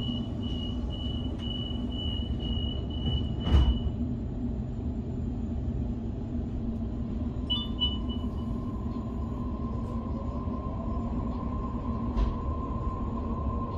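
Inside a Sydney suburban electric train carriage: a steady low rumble and hum, with a high electronic beeping tone over the first few seconds and a sharp knock about three and a half seconds in. In the second half the electric motor whine sets in and rises in pitch as the train pulls away from the platform, with another knock near the end.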